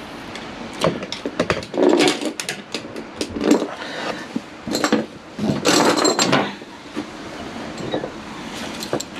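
Scattered knocks, clicks and clatter of tools and small parts being handled on a garage floor, with rustling between them and a longer, louder rustling scrape past the middle.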